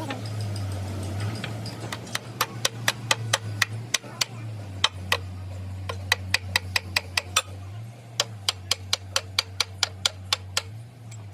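A quick series of sharp taps, about five a second, in three runs separated by short pauses, over a steady low hum.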